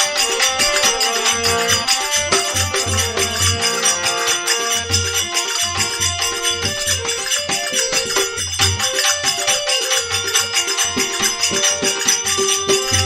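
Instrumental break in a Rajasthani bhajan: a held melody line over a steady beat of low drum strokes and jingling hand percussion.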